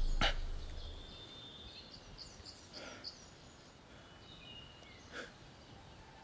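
Quiet forest ambience with small birds calling: a quick run of high chirps about two seconds in and thin whistled notes later. A low rumble fades out in the first second, and a few soft clicks sound near the start and around five seconds in.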